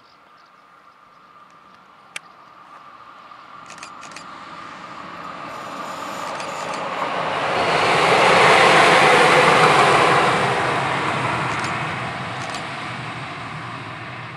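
DB Class 151 six-axle electric locomotive running light past the listener, with motor and wheel-on-rail noise: it swells as it approaches, is loudest about eight to ten seconds in, and fades as it moves away. A single sharp click comes about two seconds in.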